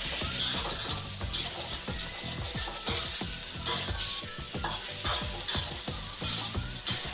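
Chicken and jalapeño pieces sizzling in hot oil with miso, mirin and sake as they are stirred in a frying pan. A steady hiss runs under frequent short stirring knocks and scrapes.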